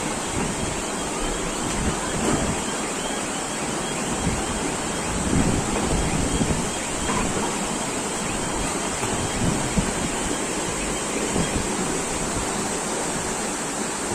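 Floodwater rushing in a fast, churning torrent down a street, a steady rushing noise, with wind gusting on the microphone.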